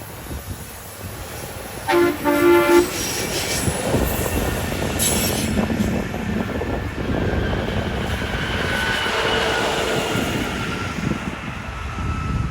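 Horn on rail maintenance-of-way equipment giving two short blasts about two seconds in, then the track machines rolling past on the rails with a steady clatter and a thin wheel squeal in the last few seconds.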